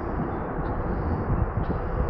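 Steady outdoor background rumble and hiss with irregular low thumps.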